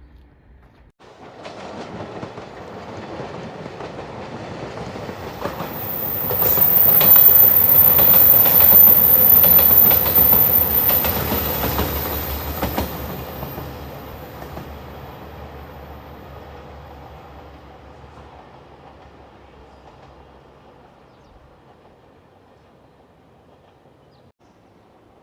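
A train passing close by: its rumble builds from about a second in, is loudest for several seconds with the wheels clicking rapidly over the rail joints, then slowly fades as it runs away.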